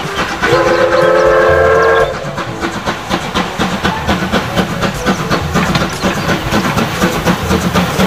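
Steam locomotive dressed as Thomas the Tank Engine blowing one long whistle, a chord of several steady tones, from about half a second in to two seconds. It then runs on with a fast, even beat of exhaust chuffs and rail clatter.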